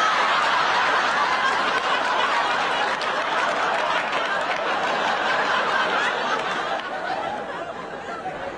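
A crowd laughing, the laughter dying down over the last couple of seconds.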